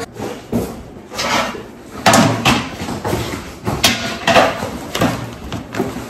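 Plastic packaging crinkling and rustling as new kitchenware is unwrapped, with several sharp knocks and clatters of pans and boards set down on a countertop.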